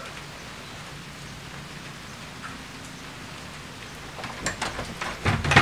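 Steady, even hiss of background noise, then several short knocks near the end.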